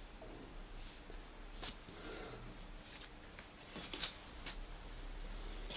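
A handful of faint short taps and scrapes from wooden strips and tools being handled on a workbench, over quiet workshop room tone.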